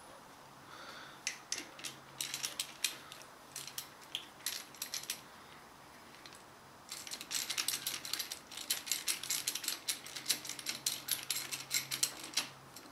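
Socket ratchet wrench clicking as it tightens the centre bolt of a steel hub adapter. A few short runs of clicks come first, then a long run of fast clicking from about halfway through.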